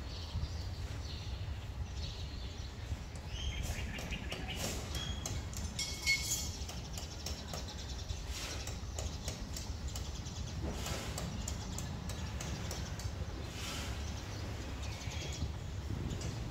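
Outdoor ambience: small birds chirping now and then, most often a few seconds in, over a steady low rumble.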